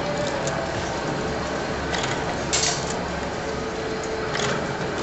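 Rotary bottle filling and foil-sealing machine running: steady mechanical clatter of the indexing starwheel and filling heads, with three short hisses about two, two and a half and four and a half seconds in.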